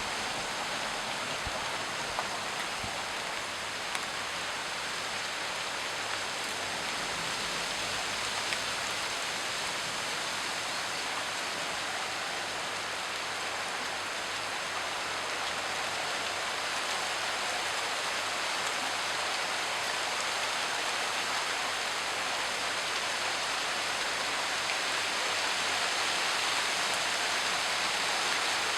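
Steady rain falling, its hiss growing a little louder through the second half.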